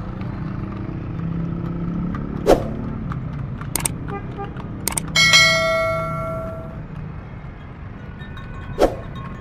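Subscribe-button animation sound effects: several sharp mouse-click sounds, then about five seconds in a bright notification-bell ding that rings for about a second and a half. A steady rumble of street traffic runs underneath.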